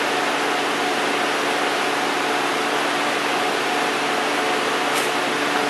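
2004 Nissan Quest's 3.5-litre V6 idling steadily with the hood open: an even hiss with a low steady hum. A faint click about five seconds in.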